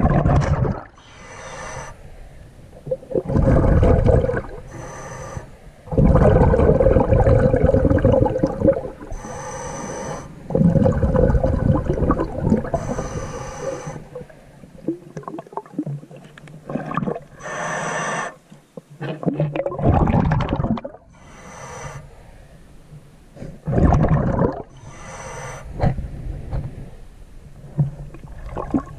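Scuba diver breathing through a regulator underwater: irregular bursts of rushing, gurgling bubbles every few seconds.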